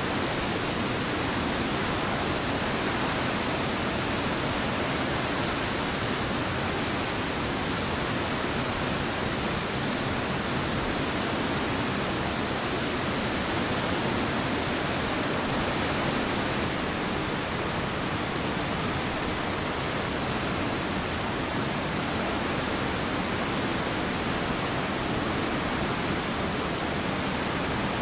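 Shōmyō Falls, Japan's tallest waterfall, making the steady, unbroken rush of heavily falling water: an even noise from deep to high pitches that does not change.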